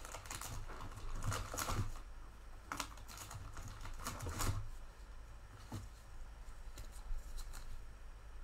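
Trading cards and clear plastic card sleeves being handled with gloved hands: a scattering of light clicks and rustles of card stock and plastic, over a low steady hum.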